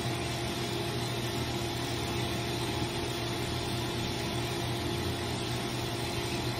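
Steady hum of a dog microbubble bath's pump running, with water rushing from the hand-held nozzle held under the water.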